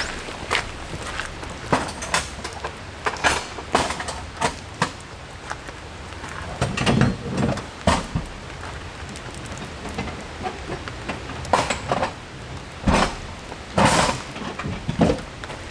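Irregular knocks, clatters and short rustles of camp gear being handled, over steady rain.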